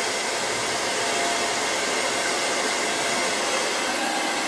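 Strong wind blowing across the microphone: a steady, loud, unbroken rush.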